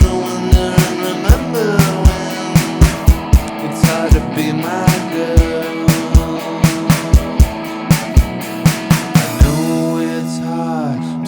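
Rock band playing an instrumental passage: an electronic V-Drums kit beating out a steady rhythm under guitar with bending notes. The drums stop about nine and a half seconds in, leaving the guitar chords ringing.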